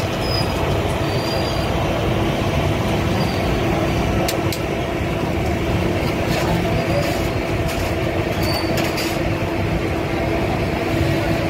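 Rotisserie chicken grill running: a steady mechanical rumble with a constant hum from the turning spits and their drive, with a few light clicks in the middle.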